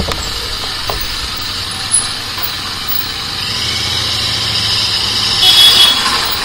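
Royal Enfield Interceptor 650's parallel-twin engine running at low speed in slow street traffic, with a few small clicks early and a louder, higher-pitched sound about five and a half seconds in.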